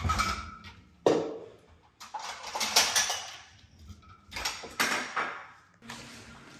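Kitchenware being handled: a run of clattering knocks and rustles in separate spells, with a sharp knock about a second in.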